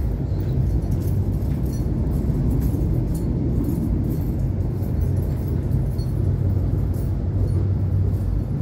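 Steady low rumble of an electric suburban train running along the track, heard from inside the carriage.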